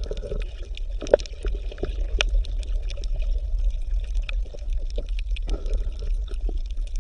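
Water bubbling and trickling, with many small irregular pops and drips over a steady low hum.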